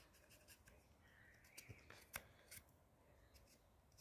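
Faint, scattered clicks and light scrapes of a knife trimming walnut graft wood, cleaning away loose fibrous tissue from the cut.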